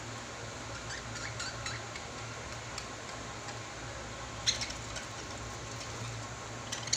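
Pet lovebirds making a few short, sharp high sounds over a steady low hum: a small cluster about a second in, a louder one about four and a half seconds in, and a few more near the end.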